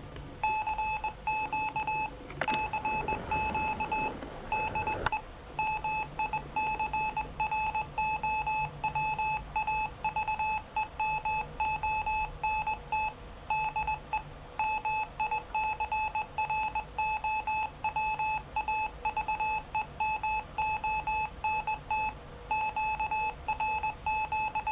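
Morse code tone from a software Morse generator, keyed at about 20 words per minute: one steady high beep switched on and off in quick dots and dashes. A short stretch of hiss-like noise sounds under it about three seconds in.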